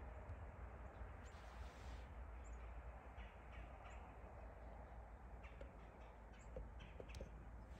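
Near-quiet woodland ambience: a low steady rumble and hiss, with a handful of faint, short ticks and chirps scattered through.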